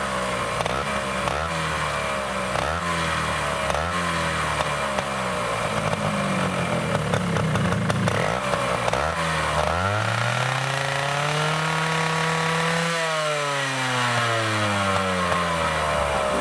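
Honda TLM220R trial bike's two-stroke single-cylinder engine running on the stand, blipped repeatedly, then revved up to high rpm about ten seconds in, held, and let fall back down. It now revs out freely to high rpm after a poor contact in the spark plug coil wiring was put right.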